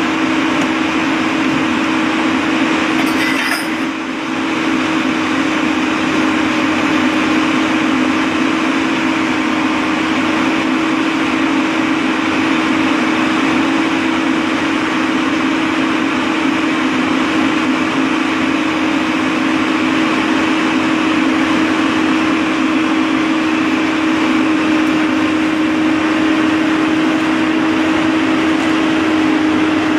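Steady engine drone with a constant hum, dipping briefly about four seconds in.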